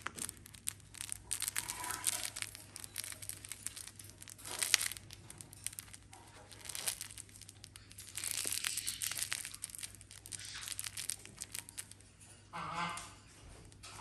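Sulphur-crested cockatoo biting and chewing a crinkly plush toy: sharp beak clicks and bursts of crinkling and tearing. A short honk-like call comes near the end.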